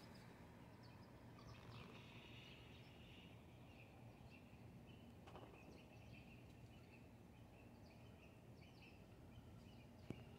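Near silence: faint outdoor ambience with faint, high chirping of small birds through the middle of the stretch.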